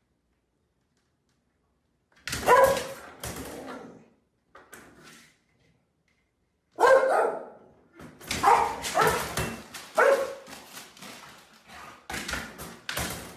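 A dog barking repeatedly in quick runs, starting about two seconds in, as it jumps at a front door's mail slot while mail is pushed through.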